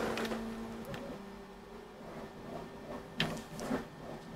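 Quiet room tone with a faint steady hum, and a few light handling clicks about three seconds in.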